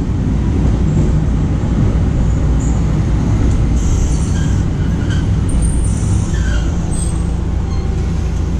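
Streetcar heard from inside at the front of the car as it runs along street track: a steady low rumble of the traction motors and the wheels on the rails.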